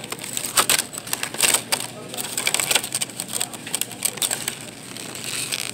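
Plastic clamshell strawberry containers clicking and crackling irregularly as they are handled, picked up and shifted against one another.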